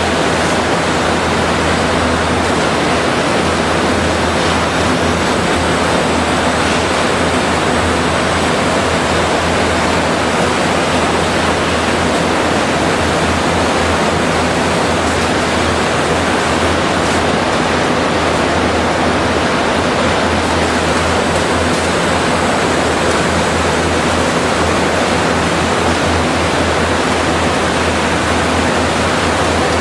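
Steady, loud, even rushing din with a constant low hum underneath: machinery and ventilation noise in a lignite power-plant hall.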